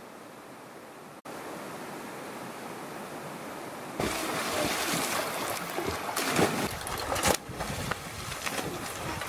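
Steady rush of flowing river water, stepping up louder about a second in, then from about four seconds in uneven splashing and sloshing of people swimming and jumping into the pool, with a couple of sharper splashes near the end.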